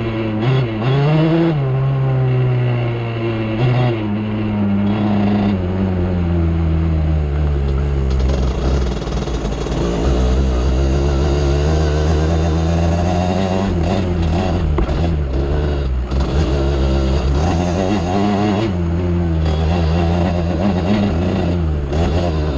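ATV engine running under a rider's throttle, its pitch rising and falling as it is revved and eased off.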